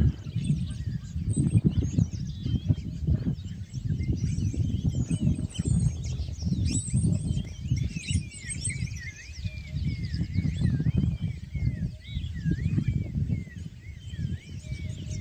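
Many birds chirping and calling over one another in quick, wavering notes, over a steady low rumble.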